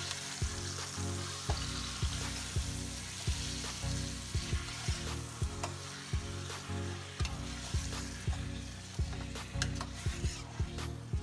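Chicken pieces sizzling as they sauté in hot oil in a stainless steel pot, stirred with a metal spoon that clicks against the pot now and then.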